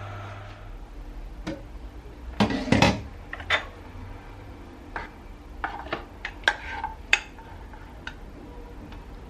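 Scattered clinks and knocks of dishes and utensils being handled, the loudest pair about two and a half seconds in, with a low hum that fades out in the first second.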